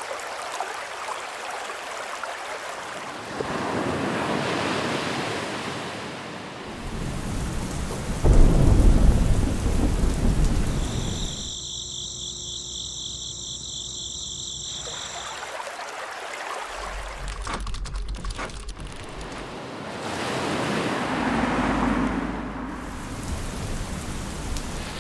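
A run of changing nature ambiences: rushing water and swelling waves, then a loud, deep rumble of thunder about eight seconds in. After the thunder comes a high, steady cricket chirring.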